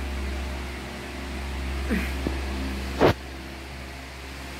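Steady low machine hum, with a short falling sound about two seconds in and a brief sharp knock about three seconds in, the loudest moment.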